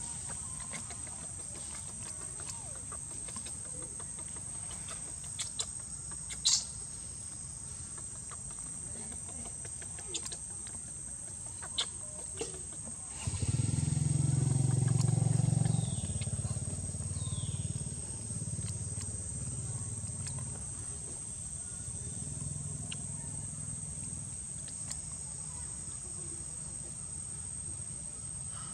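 Outdoor ambience under a steady high-pitched insect drone, with a few faint clicks. About halfway through, a low rumble swells, holds for a few seconds and fades.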